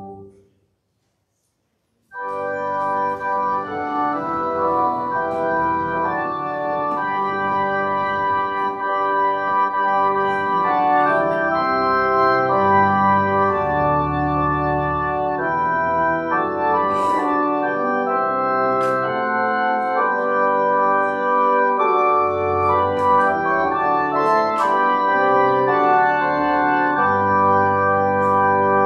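Organ playing slow, held chords that change every second or so. It comes in after about two seconds of silence.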